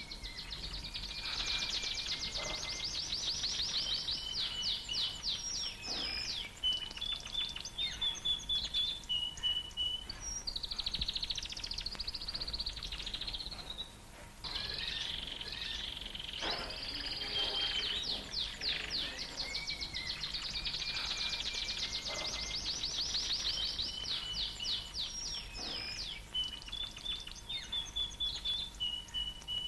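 Caged canaries singing: long, rapid trills of repeated notes alternating with held whistled tones, running almost continuously with a brief lull about halfway through.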